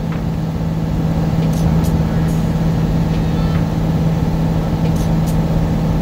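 A semi-truck's diesel engine and road noise heard inside the cab while rolling downhill: a steady low drone with one strong, even hum.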